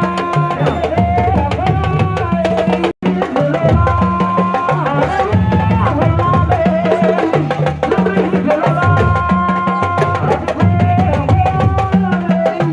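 Music with fast, dense drumming over a stepping bass line and held melody notes, cut off for an instant about three seconds in.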